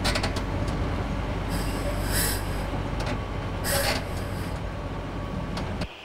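Crawler crane's diesel engine running steadily under load as it swings a steel beam, with two short hisses, about two and four seconds in. The engine sound cuts off just before the end.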